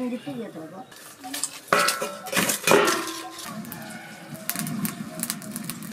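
Stainless-steel plates and bowls clattering against each other, with two sharp ringing clanks about two and three seconds in.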